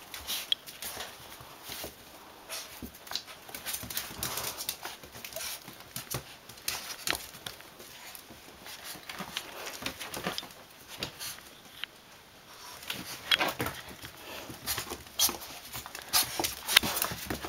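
Small Maltese and shih-tzu pups wrestling in play with a black puppy: scuffling and dog noises mixed with many short clicks and knocks, busiest and loudest in the last few seconds.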